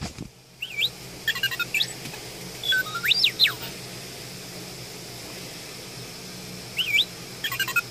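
R2-D2 toy robot chirping: electronic beeps and warbling whistles that swoop up and down in pitch, in one group through the first few seconds and another near the end, over a steady low hum.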